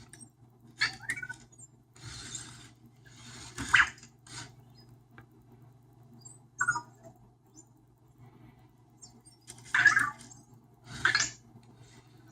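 Anki Vector home robot making a string of short squeaky electronic chirps and whirs, the loudest about ten and eleven seconds in.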